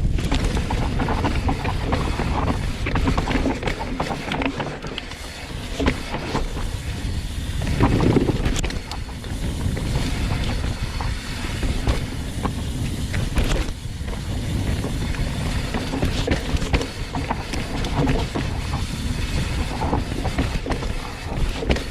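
Hardtail mountain bike descending a loamy dirt trail at speed: a steady low rumble of wind and tyres on dirt, with frequent clicks and knocks as the bike rattles over bumps and roots. There is a louder rush about 8 seconds in.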